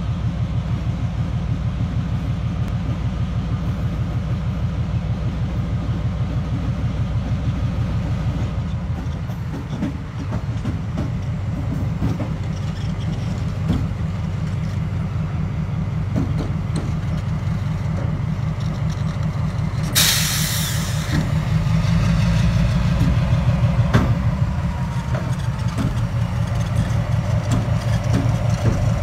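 Diesel switcher locomotive running steadily as it pulls a passenger car across a steel girder bridge, its wheels clicking over the rail joints as it draws near. A brief hiss comes about twenty seconds in.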